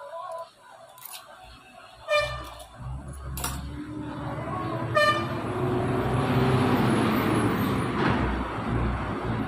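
Two short vehicle-horn toots, then a rush of noise that swells for several seconds, with a faint rising tone in it.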